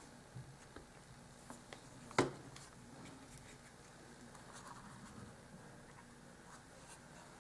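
Quiet handling of small cardstock boxes on a tabletop: faint scrapes and light taps as a glued box is set on the stack and pressed down, with one sharper knock about two seconds in.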